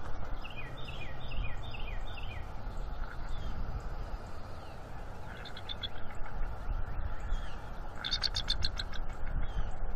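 Outdoor dawn ambience: a low wind rumble on the microphone with birds calling, a quick run of descending chirps about a second in and a louder rapid chattering series about eight seconds in.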